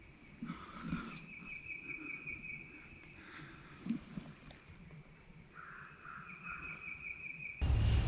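Outdoor spring woodland sound with birds calling: a steady high trill runs throughout, with a few softer, lower calls in between. Near the end the sound jumps suddenly to a loud rushing noise.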